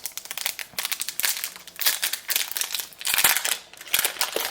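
Crinkling and rustling of a trading-card booster pack wrapper being handled and opened, in a quick run of irregular crackles that swell twice, about two and three seconds in.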